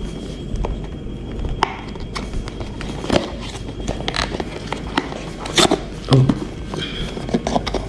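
A cardboard product box being handled and opened by hand: irregular scrapes, rubs and small clicks of cardboard, with a few louder knocks and scrapes about three, five and a half, and six seconds in.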